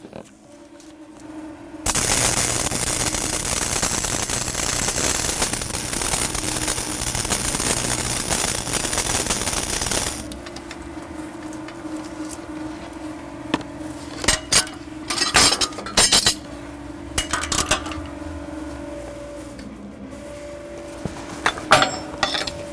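Lincoln 225 stick welder's arc crackling and hissing steadily for about eight seconds, welding a steel plate to a steel beam, then stopping. After it, over a steady hum, come sharp metallic clinks in two spells as a chipping hammer knocks slag off the fresh weld.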